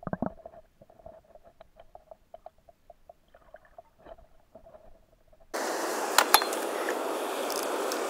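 Faint, muffled underwater sound with rapid soft ticking and a faint steady tone, which cuts off abruptly about five and a half seconds in to the steady rush of a small waterfall on a stream, with a few sharp clicks soon after.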